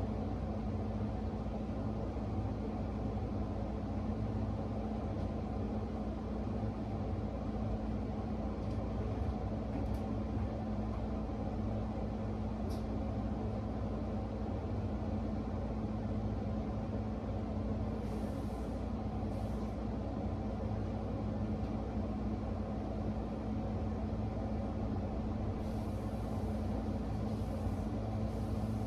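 Steady mechanical hum with a constant low tone over a rumble, unchanging throughout, with a few faint high ticks.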